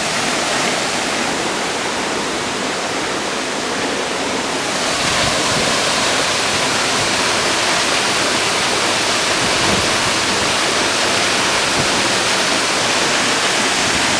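Waterfall's water rushing in a loud, steady roar, growing louder and brighter about five seconds in.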